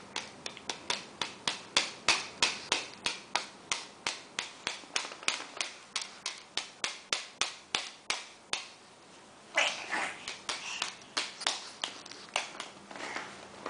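Hollow plastic toy stacking rings knocked together by a baby: a steady run of clacks, about three a second, then a short pause and a looser, uneven run of clacks.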